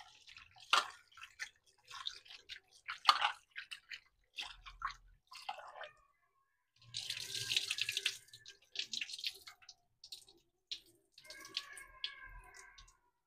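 Raw prawns being washed by hand in a steel bowl under a running tap: water splashing and sloshing in irregular bursts as they are rubbed and the water is poured off into the sink, with a couple of short pauses.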